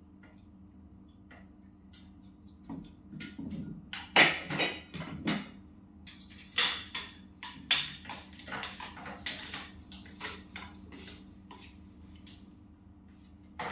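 Knocks and clatter of a blender jar being handled and its base and rubber gasket fitted together, the handling starting about three seconds in and busiest in the middle. A steady low hum runs underneath.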